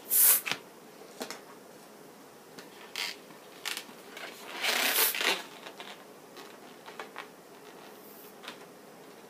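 Inflated latex twisting balloon being handled, rubbing against the hands in several short bursts, with a longer rub about five seconds in and a few small ticks between.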